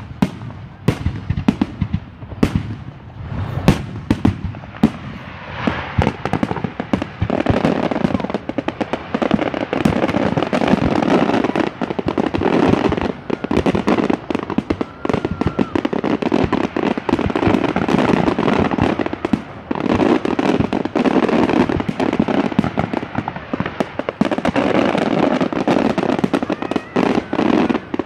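Aerial fireworks bursting overhead: separate booms at first, then from about seven seconds a dense, rapid-fire run of bangs.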